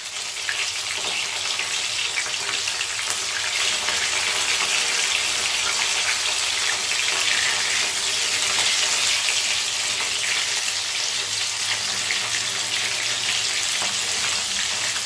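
Potato-starch-coated chicken pieces deep-frying in hot oil in a wok: a steady, even sizzle full of fine crackles.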